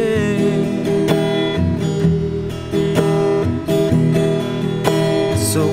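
Acoustic guitar strumming chords in a steady rhythm, an instrumental break in a slow, sad Moluccan folk song.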